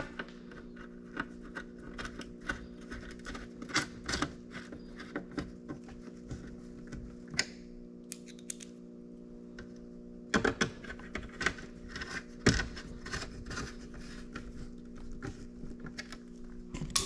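Irregular clicks, taps and rustles of hands working with trim pieces and double-sided tape in a 2003 Smart's interior, to silence a rattle. A steady low hum runs underneath. The clicking thins out for a couple of seconds around the middle, then picks up again.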